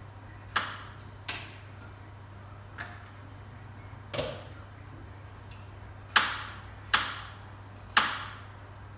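Cookware and kitchen utensils knocking and clinking as a pot lid and tools are handled: about seven sharp strikes at uneven intervals, each ringing briefly, the three loudest close together near the end, over a steady low hum.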